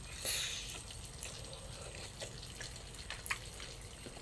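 Sukiyaki hot pot simmering in a pan on a portable gas burner: faint bubbling with small scattered pops and a brief hiss near the start.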